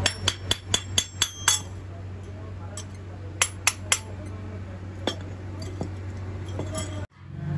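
Freshly cast brass goblets knocked and tapped with iron tongs, giving sharp ringing metallic clinks. About eight come in quick succession at first, then a few more around the middle. A steady low hum runs underneath.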